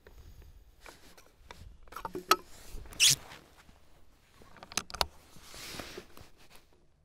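Handling noise of a shooter settling behind an L96A1 sniper rifle on its bipod: clothing rustling, a few light clicks and knocks, and a short scraping rustle about three seconds in.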